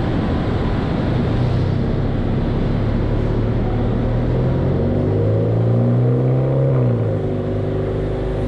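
Kia Rondo's exhaust note as the car drives slowly; the engine note rises about five seconds in and eases back just before seven seconds.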